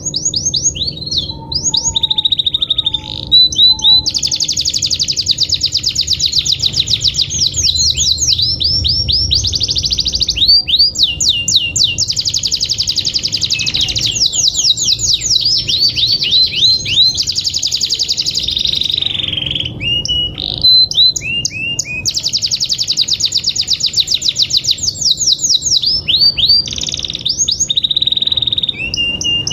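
Domestic canary in full song: long, fast high-pitched trills and rolling runs of rapidly repeated notes, phrase after phrase with only brief breaks. It is the kind of full, lively song used as a lure to set other canaries singing.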